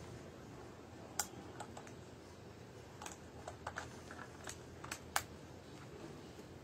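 Scattered light clicks and taps from a Nikon D600 DSLR body being handled, its buttons and controls pressed one after another, the sharpest click about five seconds in.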